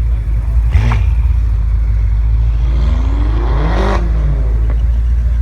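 A car engine revs once: its pitch climbs over about a second and a half, peaks about four seconds in and drops back, over a steady low rumble. A sharp crack sounds about a second in.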